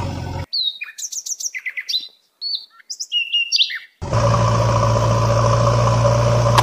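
Small birds chirping in quick, high calls, several of them sweeping down in pitch, for about three and a half seconds. A steady engine drone cuts off abruptly just before the chirps and starts again about four seconds in.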